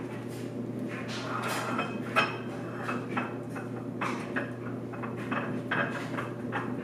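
Groceries being put away: plastic packaging rustling and containers knocking and clinking in a string of short, irregular handling sounds over a steady low hum.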